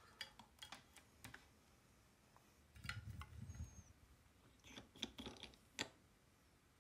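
Faint scattered clicks and light taps of a printed circuit board and small kit parts being handled and set down on a workbench, with a soft low rumble of handling about three seconds in and a short cluster of clicks near the end.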